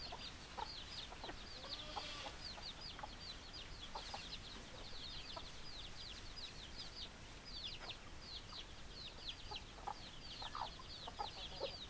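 Chickens calling: a constant stream of short, high, falling peeps, several a second, with occasional lower clucks mixed in.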